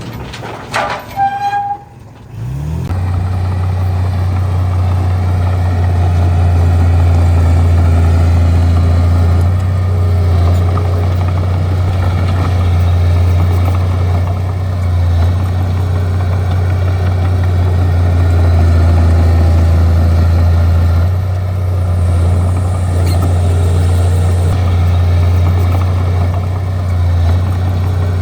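Bulldozer's diesel engine running with a steady deep drone. In the first two seconds there are a few short gliding tones and a brief drop in level before the engine sound takes over.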